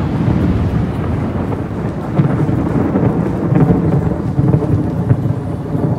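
Wind buffeting an outdoor phone microphone: a loud, low rushing noise that swells and dips irregularly.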